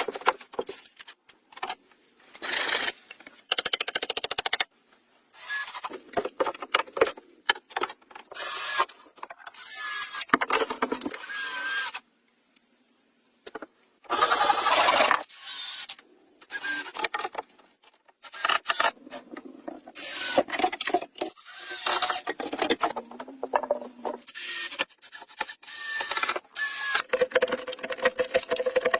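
Hand tools scraping and rasping in a string of short, separate bursts that stop abruptly, with about two seconds of near silence roughly twelve seconds in.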